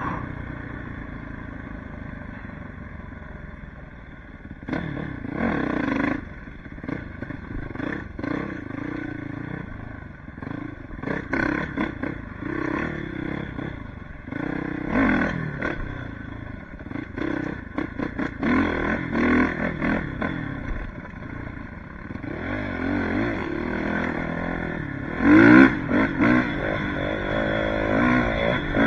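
Suzuki RM-Z450 four-stroke single-cylinder motocross engine being ridden hard, revving up and down over and over as the throttle is opened and shut. It is lower and dropping for the first few seconds, then rises and falls in pitch throughout, loudest about 25 seconds in.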